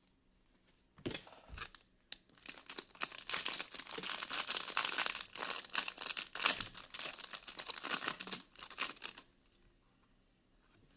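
Foil wrapper of a trading card pack being torn open and crinkled. It starts with a few crackles and then becomes several seconds of continuous crinkling that stops about two seconds before the end.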